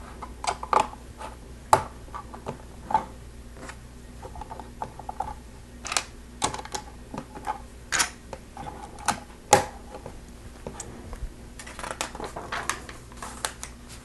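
Plastic Lego bricks clicking and tapping as pieces are handled and pressed together. The clicks come irregularly, with a few louder snaps and a quick flurry of clicks near the end.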